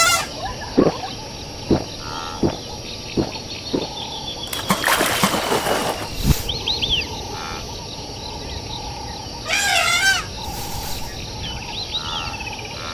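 Cartoon savanna soundtrack: an outdoor background of birds chirping, with a run of soft knocks in the first few seconds, a loud rushing noise around five seconds in, and a short warbling animal-like call about ten seconds in.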